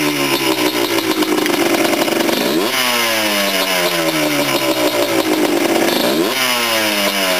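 Freshly rebuilt Yamaha Blaster ATV's two-stroke single-cylinder engine running through its first break-in heat cycle, near operating temperature. The throttle is varied rather than left at idle: engine speed rises quickly about two and a half seconds in and again about six seconds in, then sinks slowly each time.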